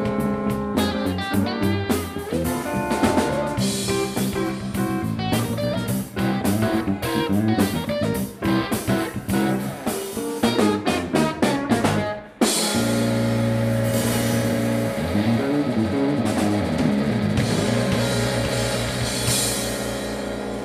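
Live funk instrumental on pedal steel guitar, electric guitar, electric bass and drum kit, with busy drum hits. About twelve seconds in the groove breaks off for a moment and gives way to a long held chord over a cymbal wash, with notes bending in pitch.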